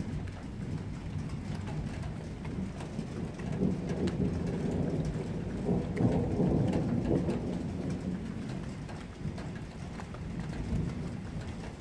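Thunder rumbling through steady rain: the low rumble builds a few seconds in, is strongest around the middle and slowly fades, while raindrops tick throughout.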